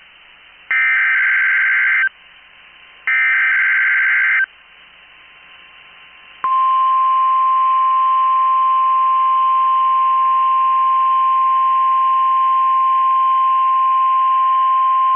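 NOAA Weather Radio SAME alert header: two bursts of warbling digital data tones, each about a second and a half long and a second apart, the last repetitions of the three-times-sent header, with radio hiss between them. About six and a half seconds in, the steady 1050-hertz warning alarm tone starts and holds unbroken.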